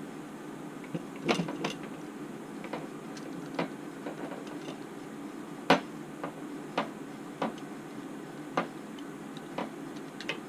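Scattered light clicks and knocks, about a dozen at uneven intervals, the loudest a little past halfway, from small hard parts of an RC helicopter's tail boom and torque tube being handled and tapped during disassembly.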